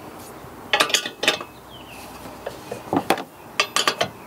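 Steel combination wrench clinking against the nuts and steel bracket while tightening U-bolt nuts. Sharp metal clinks come in two clusters, about a second in and again about three seconds in.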